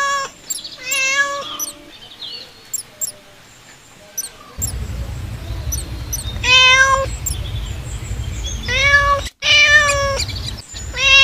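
A cat meowing repeatedly, about five drawn-out meows with pauses between them, the longest gap in the middle. Faint short high-pitched chirps sound in the first few seconds, and a low rumble comes in about halfway through.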